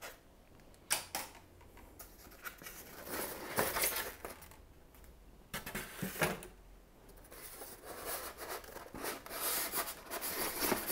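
Polystyrene foam packing inserts being handled and lifted out of a cardboard box: irregular scrapes, rubbing and light knocks.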